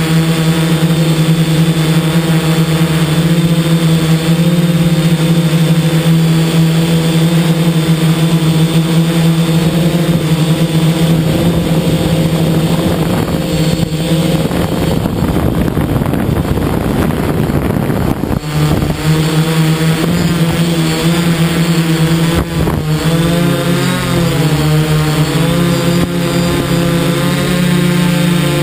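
DJI F550 hexacopter's electric motors and propellers humming steadily, heard from the camera on board. Around the middle a rushing noise swamps the hum for several seconds. Later the pitch of the motors wavers and splits as they change speed.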